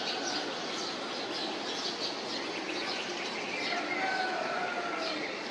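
Several birds calling at once: many short, high chirps repeated over a steady background hiss, with a few longer, lower calls falling slightly in pitch in the middle.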